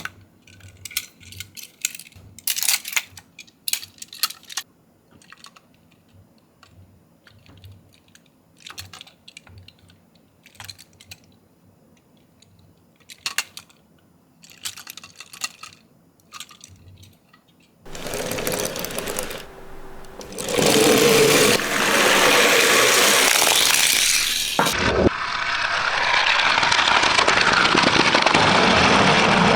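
Toy minicars clicking and rattling in scattered short bursts as they roll down a slope. About 18 seconds in, a loud, continuous, noisy sound takes over.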